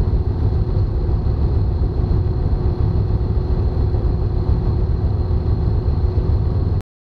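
Tecnam light aircraft's piston engine and propeller running at low taxi power, a steady low drone heard from inside the cockpit. The sound cuts off suddenly near the end.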